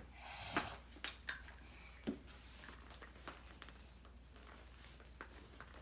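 Quiet handling noise from dolls and a wooden doll bunk bed: a few scattered light clicks and taps, with a soft rustle near the start.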